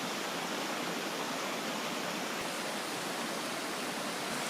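Steady rushing of a stream feeding a waterfall, an even hiss of moving water with no change in level.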